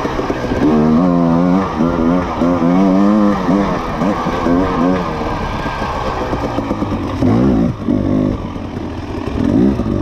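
Off-road motorcycle engine revving up and down over and over, the pitch climbing and falling with each burst of throttle, with a short drop in power about three-quarters of the way through before it picks up again.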